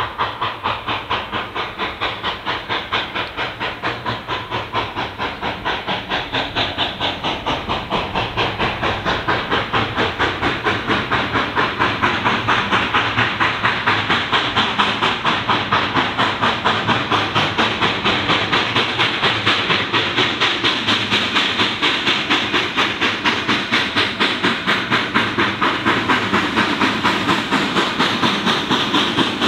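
Narrow-gauge K-28 class 2-8-2 Mikado steam locomotive No. 473 working steam as it approaches, its exhaust chuffing in an even rhythm of about three to four beats a second. The chuffs grow louder over the first half as the engine nears, with a steady steam hiss under the beat.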